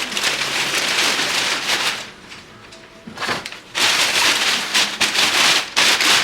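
Packaging rustling and crinkling in bursts as a shipping box is unpacked: a long stretch at first, a short burst about three seconds in, then more from about four seconds.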